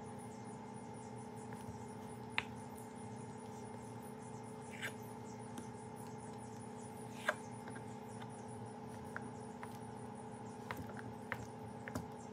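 Kitchen knife cutting a block of feta cheese on a wooden cutting board: a handful of sharp, irregular taps of the blade against the board, a few more near the end. A steady low hum runs underneath.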